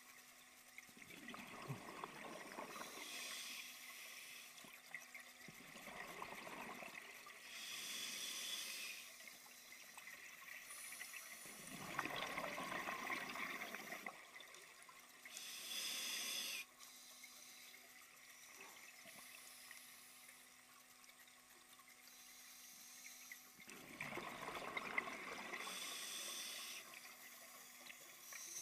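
Scuba diver breathing through a regulator underwater: hissing inhalations alternate with rushes of bubbling exhaust, in slow surges separated by pauses, with a longer quiet gap midway.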